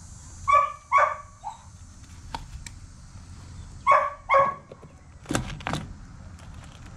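Dogs barking in short pairs: two barks about half a second in, a short third bark, then two more about four seconds in. Two sharp knocks follow shortly after.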